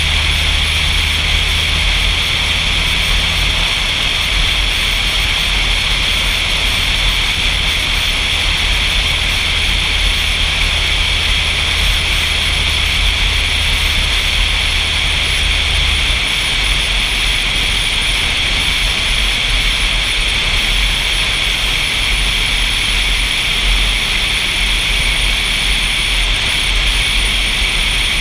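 Heavy wind rushing over a car-roof-mounted GoPro's microphone at road speed: a loud, steady noise. Underneath it runs a low car hum that drops about four seconds in and again about sixteen seconds in.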